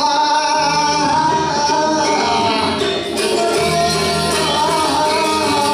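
Balinese gamelan music: a held, slightly wavering melody line over steady jingling percussion.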